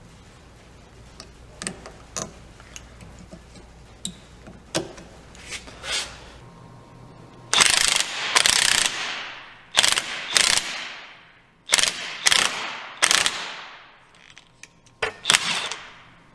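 A few light metal clicks, then a ratchet wrench cranked in about eight loud rasping strokes, turning the screw of a C-clamp that presses the new U-joint bearing caps into the driveshaft yoke.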